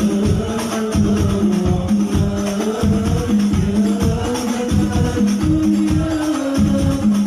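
Sholawat: an Arabic devotional song sung to fast, steady hand-drum and tambourine beats.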